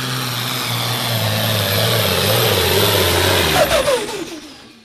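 Engine of a pulling vehicle working hard down the track, its pitch stepping lower, then the revs falling away sharply about three and a half seconds in as it lets off. The sound fades out near the end.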